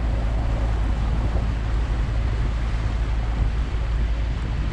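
Small motorboat under way at slow speed: a steady low engine rumble mixed with wind buffeting the microphone.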